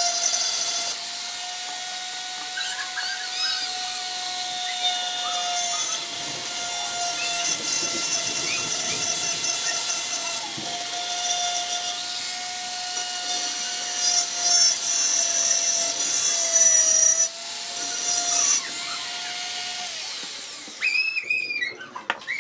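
Flex-shaft rotary tool running with a steady high whine while its bit grinds into a wet glass bottle, the grinding growing louder in spells as the bit bites harder. The motor stops near the end.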